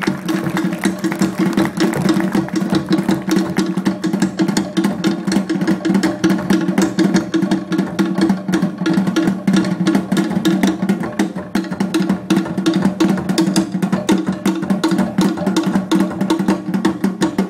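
Fast Polynesian drumming for a fire knife dance: rapid, even, wood-block-like drum strikes in a driving beat.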